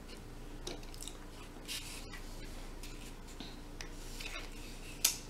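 Close-miked eating sounds: soft, scattered wet smacks and crackles of chewing and of roasted chicken being pulled apart by hand, with one sharp click near the end.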